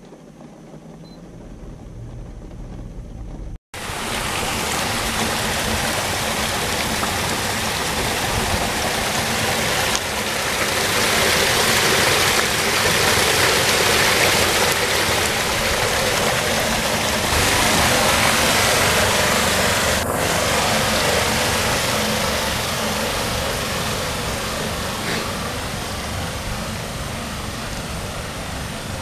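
Rainwater pouring down through a street storm drain grate: a steady, loud rushing of water that starts suddenly a few seconds in after a quieter opening.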